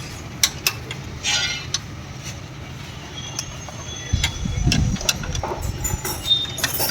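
Metal hand tools clinking and tapping on motorcycle engine parts, a scatter of sharp clicks over a steady low hum, with a heavier low rumble about four to five seconds in.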